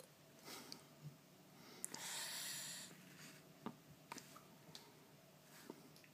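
Near silence: quiet room tone, with one brief soft hiss about two seconds in and a few faint clicks.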